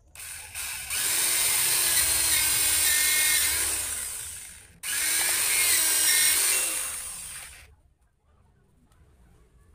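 Handheld electric drill boring into a small piece of wood in two runs, the first about four seconds long and the second about three, each tailing off as the drill is eased off.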